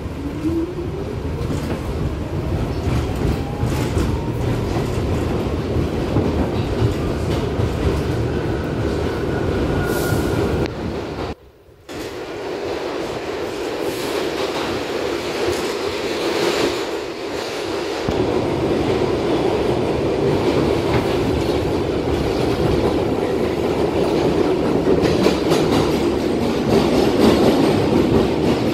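R62 subway car heard from inside as it pulls out of a station: a motor whine rising in pitch over the first few seconds, then the steady rumble and clickety-clack of the car running through the tunnel. The sound drops out briefly near the middle.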